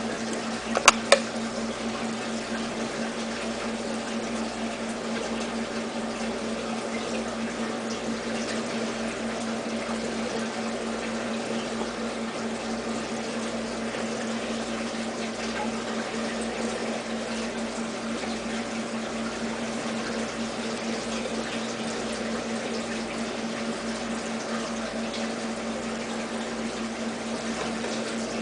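Aquarium water pump or filter running: a steady splash and trickle of water over a constant low hum. Two sharp clicks sound about a second in.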